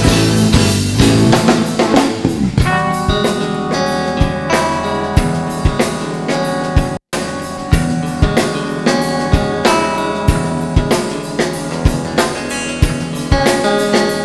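Live rock band playing an instrumental passage: drum kit with kick and snare keeping a steady beat under sustained guitar chords. The sound cuts out completely for an instant about halfway through.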